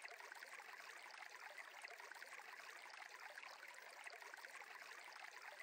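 Near silence with a faint, steady sound of a running stream.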